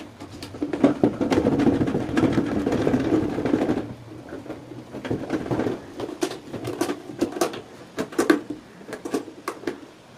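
Plastic nut and washer being turned by hand on the threaded outlet of a PVC cistern's siphon, plastic scraping and rattling on plastic. A dense stretch of scraping runs for about three seconds, then gives way to scattered clicks and short scrapes.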